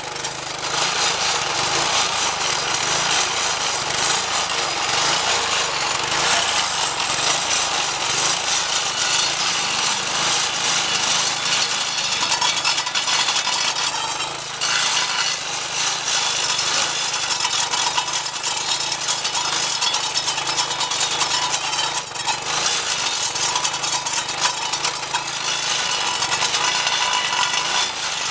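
Homemade stump grinder, an edger's Briggs & Stratton 4.5 hp vertical-shaft engine spinning a 10-inch carbide-tipped saw blade, grinding into a hardwood mulberry stump under load. It is a loud, continuous grinding, and the engine note rises and falls in the first several seconds as the blade bites.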